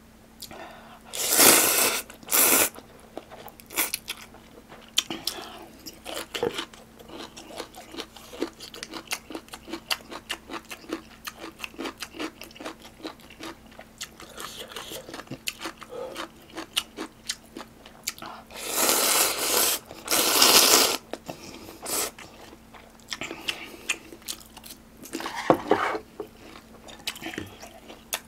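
Close-miked eating of ramen noodles: loud slurps about a second in, again about two-thirds of the way through and once more briefly near the end, with wet chewing and small mouth clicks between them.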